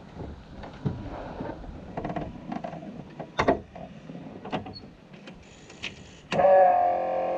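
Clicks and knocks of a driver settling into the open cockpit of an Aston Martin DBR2 recreation and flipping dashboard toggle switches. About six seconds in, a loud steady whir with a ringing pitch starts suddenly and holds.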